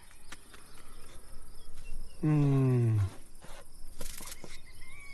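Cartoon jungle ambience with crickets and insects chirping. About two seconds in, a single low hum-like sound slides down in pitch for about a second.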